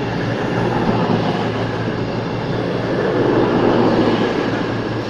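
CrossCountry Class 221 Super Voyager diesel-electric unit arriving in the platform: a steady underfloor diesel engine hum with rolling rail noise, briefly louder about three to four seconds in.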